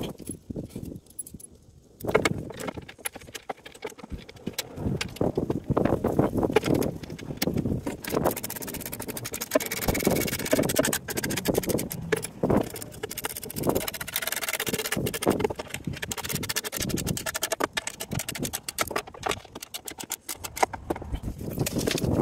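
Irregular clinking, clicking and knocking of bolts, washers and the skid plate being handled while the plate is bolted up under the UTV, the clicks coming thick and fast after the first couple of seconds.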